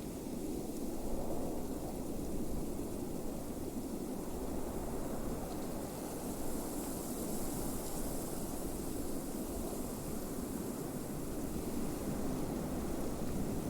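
Blizzard wind blowing steadily as a deep, even rush, with a fainter high hiss that swells about halfway through.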